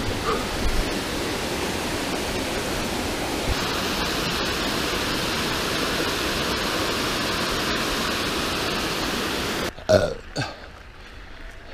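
Small waterfall rushing steadily, the splash getting louder a few seconds in. It cuts off abruptly near the end, and a short burp follows.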